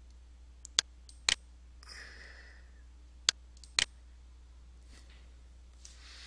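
Computer mouse clicking about four times, sharp single clicks spaced unevenly over a few seconds, over a low steady hum.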